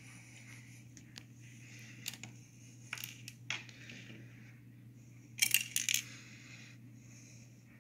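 LEGO bricks and pieces clicking and clacking as they are handled: a few separate sharp clicks, then a quick cluster of clacks about five and a half seconds in, the loudest part.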